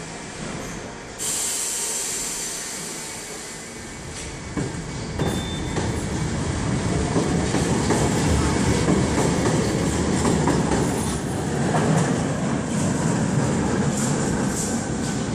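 A Budapest Metro Line 1 train moving off from an underground station. A sudden hiss comes about a second in, then the rumble and clatter of its wheels on the rails builds from about four seconds and stays loud, with a brief high squeal about five seconds in.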